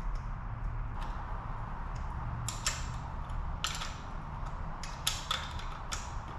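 Small metal clicks and clinks of a carburetor being worked toward the intake of a KTM 50 mini dirt bike, as it is pushed against the frame, several sharp ones coming in the second half, over a low steady hum.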